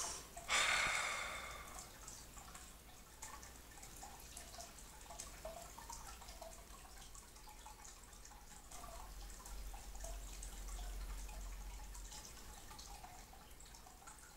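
A man drinking stout in long gulps from a large plastic coffee canister: faint, irregular swallowing and liquid sounds throughout, with a brief loud rush of noise about half a second in.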